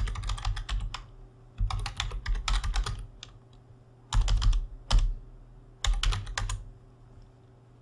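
Typing on a computer keyboard: four quick runs of keystrokes with short pauses between them.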